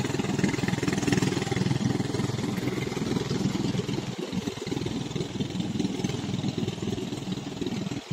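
A small engine running steadily, with a fast, even pulsing and only brief dips in level.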